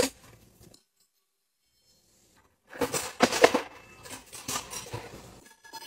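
A single sharp click, then about three seconds in a run of irregular clinks and knocks: metal cutlery rattling and clattering.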